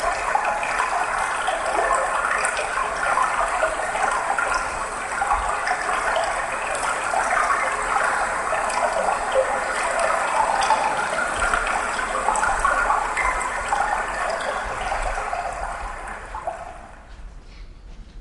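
Gushing water sound from the performance's played-back soundtrack, an even rush that fades out over the last couple of seconds.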